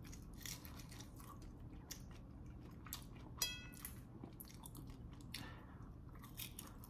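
A person biting into and chewing a crispy rice paper egg wrap, with faint crunching throughout. A brief high squeak comes about three and a half seconds in.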